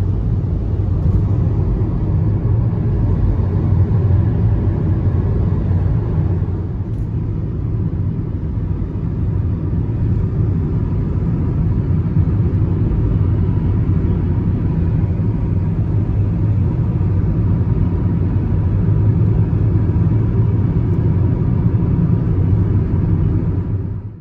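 A car driving at speed: a steady low rumble of engine and road noise, cutting off suddenly at the end.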